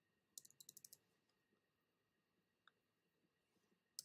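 Faint computer keyboard typing: a quick run of about half a dozen keystrokes half a second in, then a single keystroke near the end of the second half and another at the very end, with near silence between.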